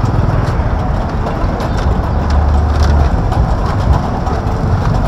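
Street traffic: vehicle engines running with a steady low rumble.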